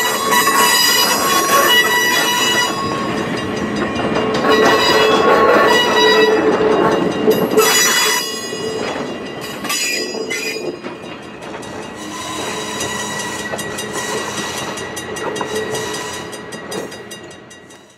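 Passenger train coaches rolling slowly past, their steel wheels squealing with high ringing tones over the rumble of the wheels on the rails. The sound drops after about eight seconds as the last car moves away, and fades out near the end.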